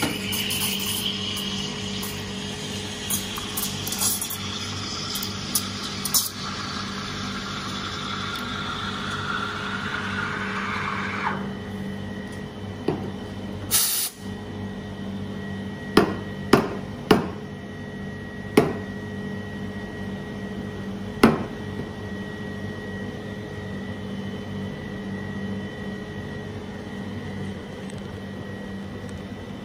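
Electric espresso grinder grinding coffee beans for about eleven seconds, its pitch rising slowly until it cuts off. This is followed by several sharp knocks and clicks from the portafilter being handled at the espresso machine, over a steady machine hum and a faint high tone.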